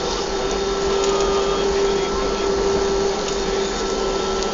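Steady cabin noise of an Airbus A320 taxiing after landing, heard from inside the cabin: an even rushing hum with a steady mid-pitched whine running through it.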